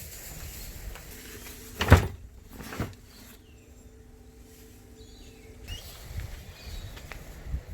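A sharp knock about two seconds in, followed by a lighter one, with a faint steady low hum for a few seconds and scattered small handling noises.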